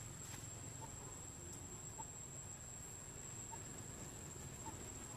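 Quiet forest ambience: a steady high-pitched insect drone and a faint short chirp repeating about once a second, over a low rumble.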